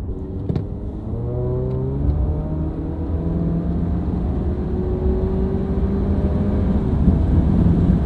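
Subaru Crosstrek's flat-four engine sounding through a Borla S-type axle-back exhaust, its note rising in pitch as the car accelerates. It is heard from the cabin with the window down, and wind rush grows louder toward the end.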